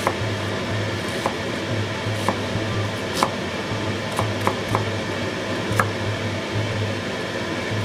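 Kitchen knife chopping onion on a plastic cutting board: sharp knocks of the blade against the board, spaced unevenly about once a second, over a steady low hum.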